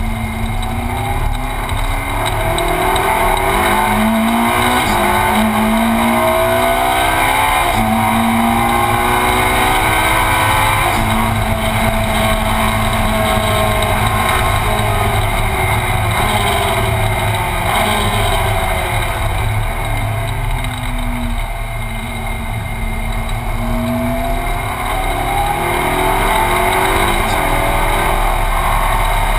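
Ferrari 458 Challenge's V8 engine heard from inside the cockpit at racing speed. It revs up in steps through several gears, its note falls away in the middle as the car slows for a corner, and it climbs through the gears again near the end.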